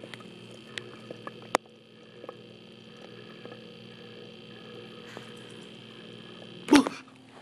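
Steady low hum of a home aquarium, with a few faint clicks in the first two seconds and one sudden loud short burst near the end.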